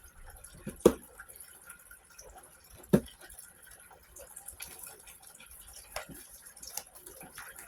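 Two sharp taps about two seconds apart, the first about a second in, with a few fainter ticks later over a quiet room hush.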